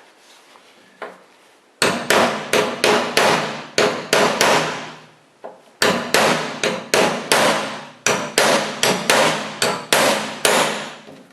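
Hammer striking a cold chisel to cut the rivets off a cart's fabric side panel, metal on metal. The blows come in two quick runs of about three a second, each ringing briefly, with a pause of about a second between the runs.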